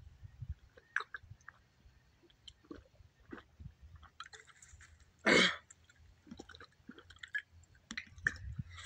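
A person gulping a drink down from a tall can, with a series of small swallowing and slurping sounds. About halfway through comes one loud, short breath sound from the throat.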